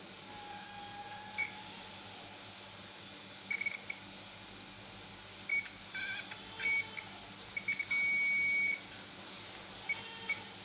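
DT-9205A digital multimeter's continuity buzzer beeping as the test probes touch points on a computer power supply's circuit board, signalling continuity between the probed points. Short beeps come at irregular intervals, with one beep held for almost a second about eight seconds in.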